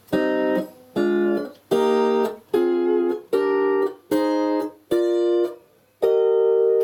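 Fender double-neck steel guitar played with a steel bar and picks: a major scale in chords, eight plucked chords at about one a second. Each chord is damped short except the last, which is held ringing.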